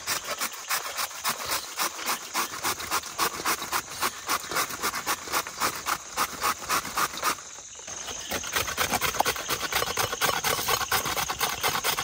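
Cauliflower being grated on a small hand grater: rhythmic rasping strokes about three a second, a short pause a little past halfway, then quicker strokes.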